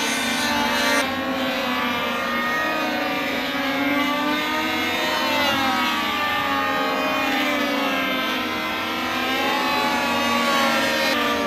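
Engines of several radio-controlled WWII-style combat model airplanes running at once, each one's pitch rising and falling as the planes climb, dive and pass by.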